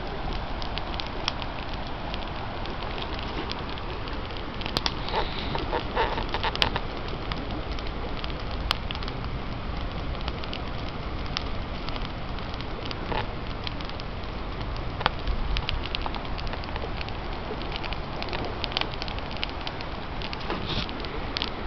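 Large wood campfire crackling, with sharp pops scattered throughout and a cluster of louder pops about five to seven seconds in, over a steady rushing hiss.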